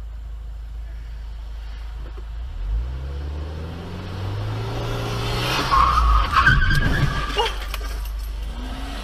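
A car's engine, heard from inside the cabin, rises in pitch as it accelerates. About five and a half seconds in, tires squeal loudly under hard braking for about two seconds, with a few knocks. The engine hum then continues.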